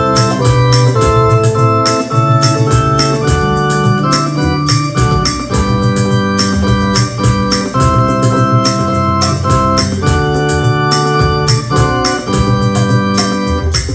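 Electronic keyboard playing a hymn in an organ voice: held full chords with a moving melody, over a steady ticking beat.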